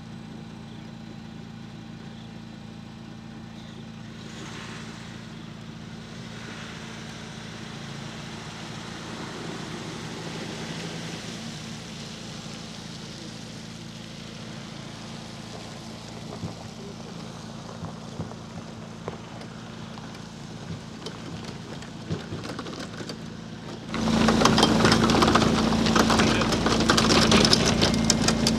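An engine running steadily at idle with a low hum. About 24 s in it is suddenly much louder and closer, with crackling noise over the hum.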